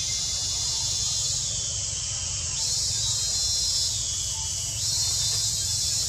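High, shrill chorus of insects droning steadily, growing stronger about halfway through and easing back near the end, over a low rumble.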